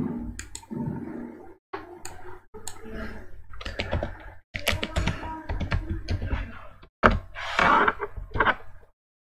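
Computer keyboard typing: quick runs of key clacks as a search query is typed, with short pauses between runs.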